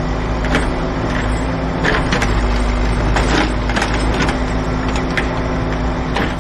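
Road roller's engine running with a steady hum while its steel drum rolls over the loose road surface, crunching and giving off irregular sharp cracks.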